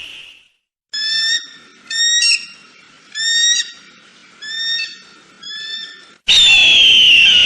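Eagle calls: five short, high, slightly rising calls about a second apart. Then, about six seconds in, a long, loud scream that falls in pitch begins.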